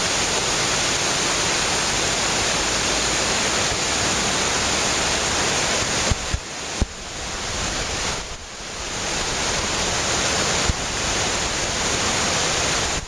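Mountain torrent rushing over rocks: a steady, loud wash of white water. From about six seconds in, the level jumps down and back up a few times, with brief sharp clicks.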